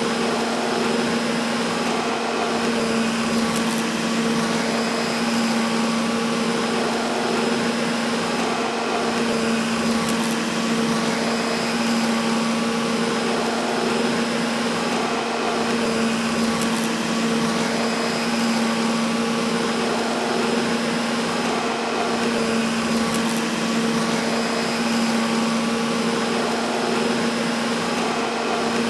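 Vacuum cleaner motor running steadily: a constant whine over a low hum, wavering slightly about every two seconds.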